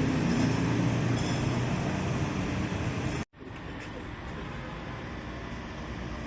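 Steady vehicle running noise with a low rumble. It cuts off abruptly about three seconds in, and a quieter, duller steady background noise follows.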